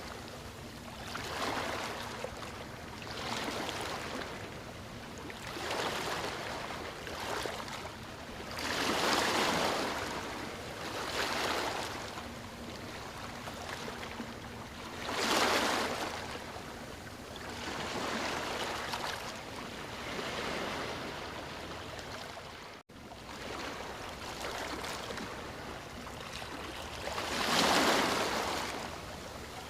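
Waves breaking and washing up on a beach, swelling and ebbing every couple of seconds, with bigger surges about nine, fifteen and twenty-eight seconds in. The sound cuts out for an instant about twenty-three seconds in.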